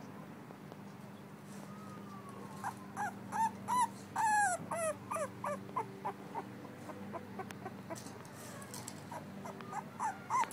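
Two-week-old blue-nosed American Pit Bull Terrier puppy whimpering in a string of short, high squeaks, loudest about three to four seconds in, with a few more near the end.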